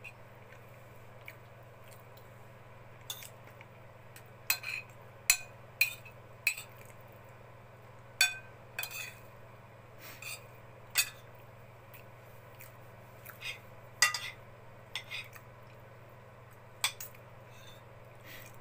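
Cutlery clinking and scraping against a plate as someone eats, in irregular sharp clicks about once a second, over a faint steady low hum.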